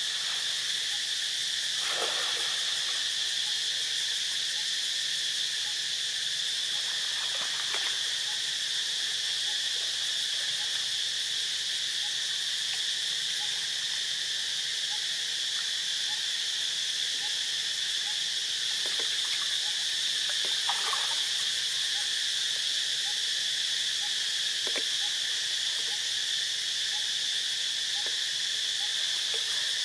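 Steady, high-pitched drone of an insect chorus, with a few faint short sounds now and then.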